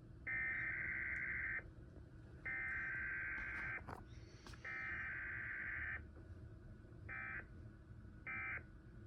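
Emergency Alert System SAME data bursts, a buzzy warbling digital tone. Three header bursts of a little over a second each are followed by two short end-of-message bursts, the coded signalling of a weekly EAS test.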